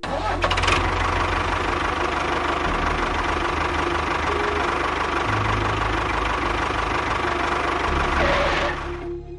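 A small motor running steadily at an even speed, with a fine rapid knock. It starts abruptly and stops shortly before the end.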